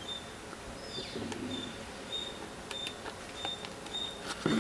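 Faint clicks and light rustles of packaging being handled, with a louder cluster of clicks near the end. A short high pip repeats irregularly in the background.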